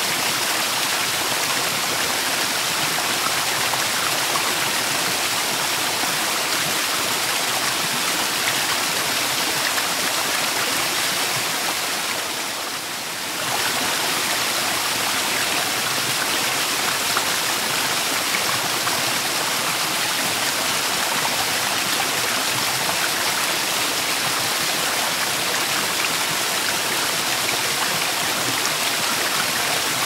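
Shallow creek cascading over rock ledges in small falls: a steady rush of water that turns briefly softer about halfway through.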